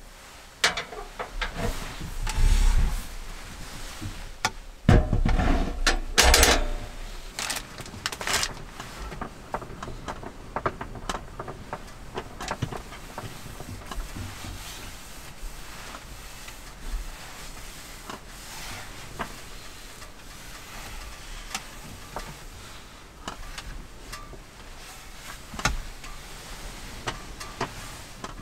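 Clunks and knocks of a case being handled and taken off a wooden table, loudest in the first seven seconds, then scattered small knocks and the rub of a cloth wiping the tabletop.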